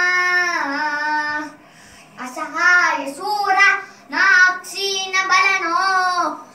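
A young boy singing a verse in a high voice, with long held notes, a short break about a second and a half in, then shorter sung phrases.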